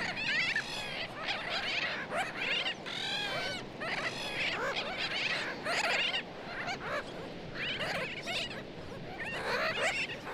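A sooty tern nesting colony calling: many birds giving short, sharp calls that overlap continuously.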